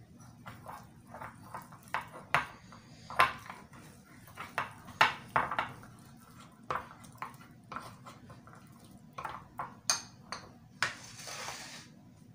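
A metal spoon stirring thick chocolate cream in a ceramic bowl, clinking and tapping against the bowl's sides in irregular strokes, two or three a second, with a longer scrape near the end.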